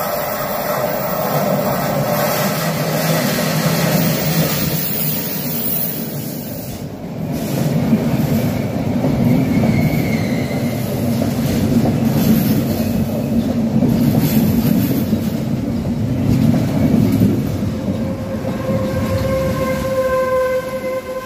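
RegioJet passenger train pulling into a station and rolling past along the platform: a steady rumble and hiss of coach wheels on the rails that grows heavier about seven seconds in as the coaches pass close by. A steady high pitched tone joins in near the end.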